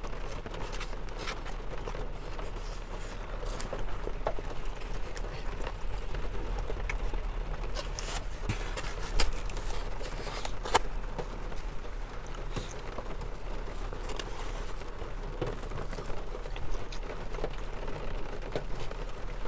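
Eating sounds close to the microphone: chewing, with a plastic fork scraping and tapping in a styrofoam takeout container and the container creaking as it is handled, in scattered clicks and crackles. Behind them runs a steady patter of rain on the car.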